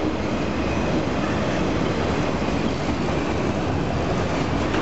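Union Pacific autorack freight cars rolling past on the main line: a steady rumble of steel wheels on the rails, even in level throughout.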